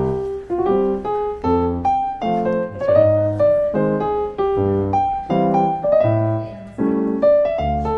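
Background piano music: a light melody played over steady chords in an even rhythm.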